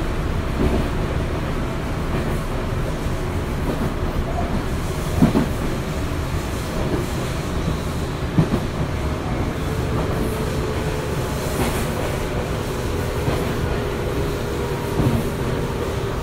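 Tobu 9050 series EMU with Toyo GTO-VVVF traction running between stations, heard from on board: a steady rumble, with wheels clicking over rail joints a few times. A faint steady hum joins about ten seconds in.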